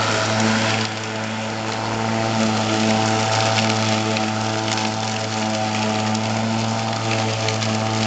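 Homemade remote-control robotic lawnmower running, its electric mower motor spinning the blade as it drives over the grass: a steady low hum with overtones under a whirring hiss, dipping slightly about a second in.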